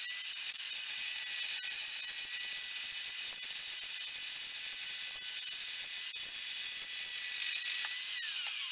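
Evolution R355 carbide-tipped chop saw cutting through a rusty steel electrical conduit: a steady, high-pitched hiss of cutting with a motor whine held on one pitch. About eight seconds in, the whine falls away as the blade spins down.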